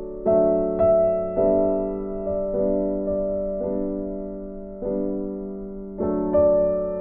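Background piano music: slow, gentle notes and chords, each struck and then fading.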